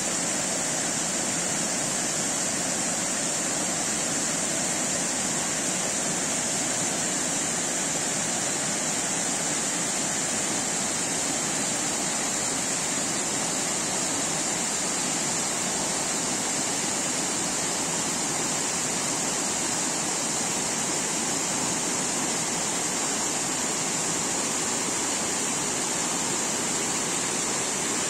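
Creek water rushing steadily over rocky rapids, an even, unbroken rush of white water.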